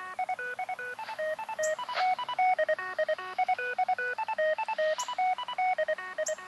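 Hidden fox transmitter's signal coming through a handheld ham radio's speaker: a fast, continuous string of electronic beeps hopping between pitches like a tune, with a few sharp clicks.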